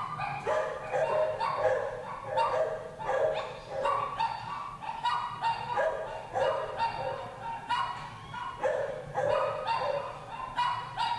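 Dogs barking over and over in a shelter kennel, with short pitched barks coming about twice a second.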